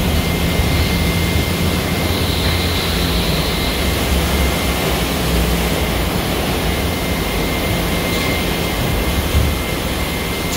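Steady factory-floor din of a KUKA robotic spot-welding line: a broad roar with a low electrical hum that comes and goes, and a thin steady high tone.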